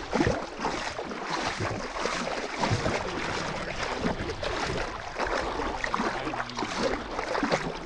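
Lake water splashing and sloshing close by as someone wades into it, a steady run of small irregular splashes.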